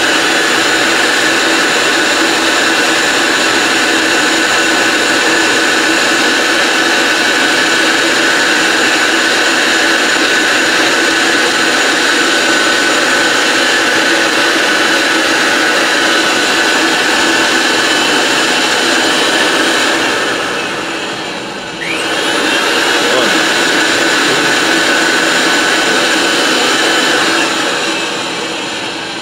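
Ridgid 300 power pipe threader's electric motor running steadily, turning the threaded pipe in its chuck while Teflon tape is wrapped onto the fresh threads. Its pitch drops and then picks back up about 22 seconds in, and it winds down near the end.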